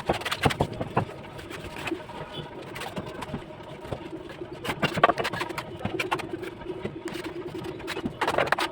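Bricklaying work: a mason's trowel knocking and scraping on bricks and mortar in sharp, irregular taps, the loudest about five seconds in. A low steady tone runs through the second half.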